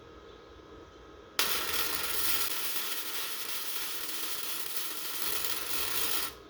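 Electric welding arc running steadily for about five seconds, starting abruptly about a second and a half in and cutting off shortly before the end, as a weld bead is laid.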